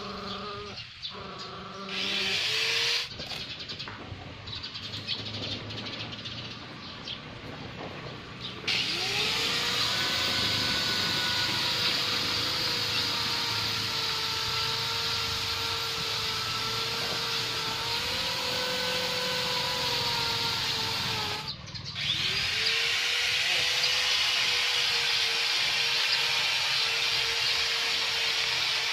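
A small motor or engine runs with a steady whine and a hiss. It winds up about nine seconds in, cuts out briefly just after twenty-one seconds, then winds up again and keeps running.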